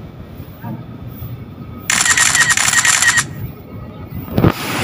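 A rapid clicking rattle, loud and dense, starting about two seconds in and lasting just over a second, over a faint low background.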